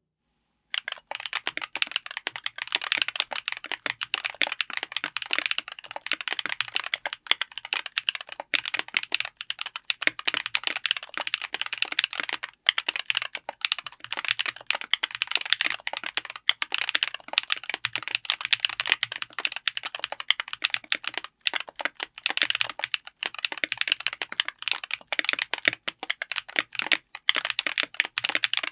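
Fast continuous typing on a mechanical keyboard fitted with Gateron EverFree Grayish heavy tactile switches, a dense run of keystroke clacks. It starts just under a second in and runs without a break until it stops at the end.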